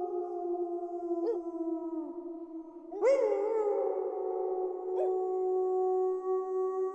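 Several wolves howling together in long, overlapping held notes at different pitches. A new howl swoops up about three seconds in, and short yips break in around a second in and near five seconds.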